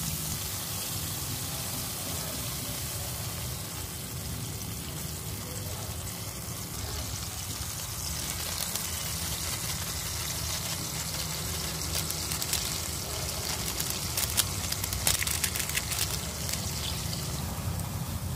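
Fried tilapia pieces sizzling in hot oil in a pan, over a steady low hum. About two-thirds of the way through, sharp crackling and spattering picks up as liquid bubbles around the fish.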